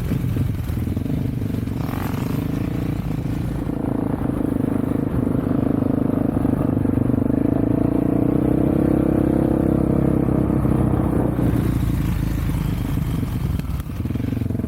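Off-road vehicle engine running steadily under way, its pitch climbing a little in the middle and easing off near the end.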